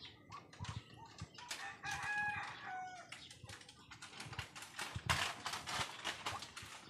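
A rooster crows once, a held call of about a second and a half. It is followed by a quick run of short scuffing noises, the loudest sounds here.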